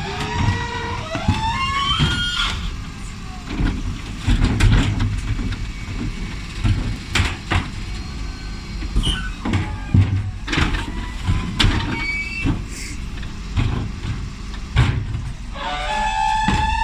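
Bin lorry with a Terberg OmniDEKA bin lift: a rising whine as the engine revs to drive the lifter, then a run of sharp bangs and clatters as wheelie bins are lifted and shaken into the hopper, then another rising whine near the end, over the truck's running engine.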